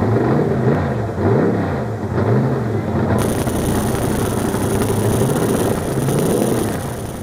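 Engine of a modified truck-pull vehicle revved up and down in quick blips, about four times in the first three seconds, then running at a steadier speed.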